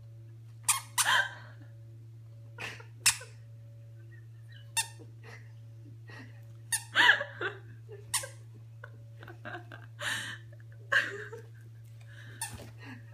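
A toddler's squeaky shoes squeaking with her steps: about a dozen short, high squeaks at uneven intervals, some in quick pairs. A steady low hum runs underneath.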